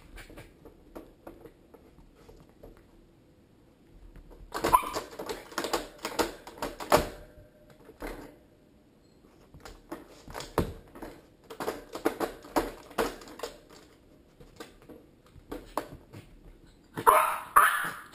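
Small dog barking and yipping in bursts, about four seconds in and loudest near the end, while it paws and bites at a plastic hamster cage, which knocks and clicks in between.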